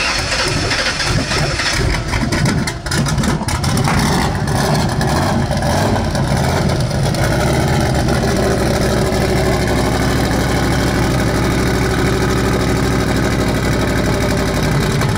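A car engine running loud and close, uneven for the first few seconds, then settling into a steady idle.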